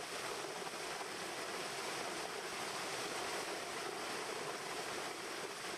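Steady, even outdoor rushing noise with no engine note or separate events, like wind and road noise.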